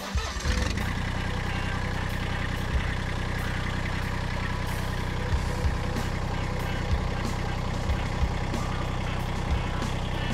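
Massey Ferguson GC1725M compact tractor's three-cylinder diesel engine idling steadily.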